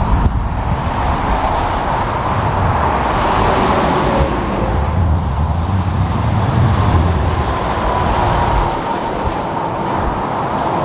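Highway traffic passing: steady tyre and engine noise with a deep rumble that swells through the middle and eases off near the end.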